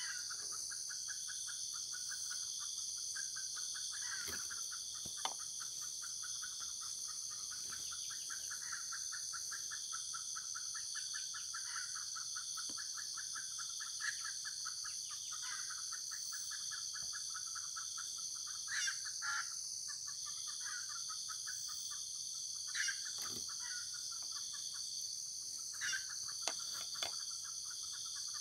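Tropical forest ambience: a steady high-pitched insect drone, with a fast rhythmic chirring beneath it and short bird calls every few seconds.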